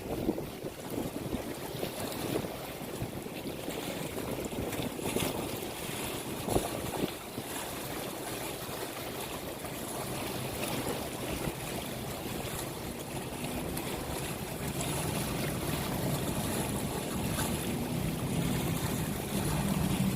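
Steady rush of water with wind buffeting the microphone. A faint low hum joins in about two-thirds of the way through.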